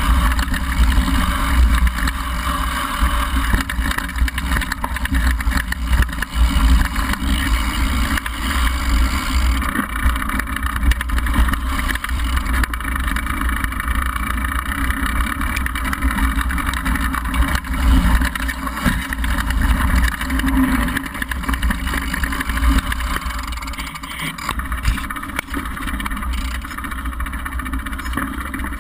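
Downhill mountain bike rolling over a loose dirt and gravel trail, heard from a camera mounted on the bike: a steady low rumble of knobby tyres on the ground with many small knocks and rattles from the bike.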